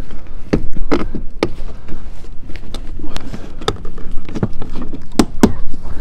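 Plastic door trim panel being pressed back onto a Dodge Grand Caravan's front door: a series of sharp, irregularly spaced clicks and knocks, about seven in all, as its push-pin retaining clips are pushed into their holes around the edge.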